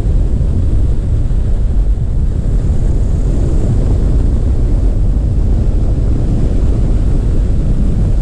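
Pipistrel Alpha Trainer's Rotax 912 engine and propeller running during the landing roll on the sand, heard as a loud, steady rush mixed with wind noise.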